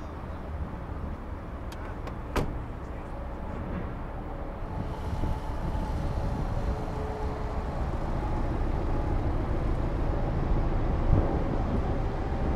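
An SUV door shuts with a single sharp knock about two seconds in, over a steady low rumble.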